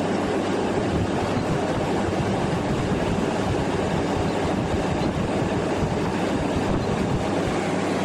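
2014 GE 8,100 BTU window air conditioner running with its fan on high speed and its compressor cooling: a steady rush of air over a low hum.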